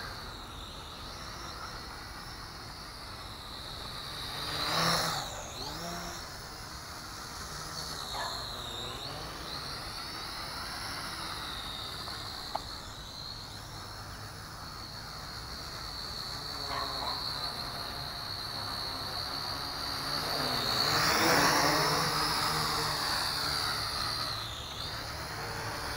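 JJRC H12C toy quadcopter's motors and propellers whining in flight. The pitch wavers up and down as the throttle changes, and it swells louder as the drone passes close, about five seconds in and again around twenty-one seconds.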